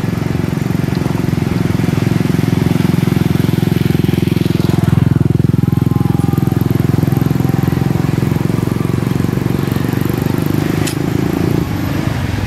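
A small engine running steadily, with one sharp click near the end.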